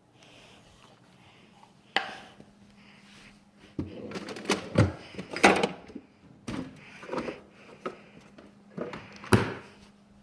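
Kitchen handling noises: a sharp knock about two seconds in, then irregular clatters and knocks of containers and dishes being handled, with a last sharp knock near the end, as dog food is got ready.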